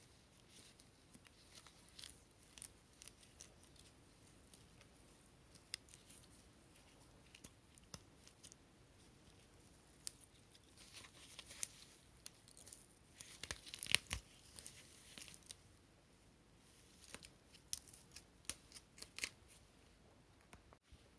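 Quiet handling sounds from taking apart and cleaning a cordless vacuum's dust box and floor head: scattered light clicks and scraping, rustling noise, busiest in a run about halfway through.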